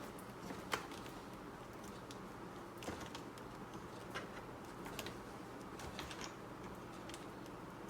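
Scattered light clicks and ticks of an M22 hose fitting being screwed by hand into a pressure washer's outlet on a fine thread, turned gently, over a low steady hum.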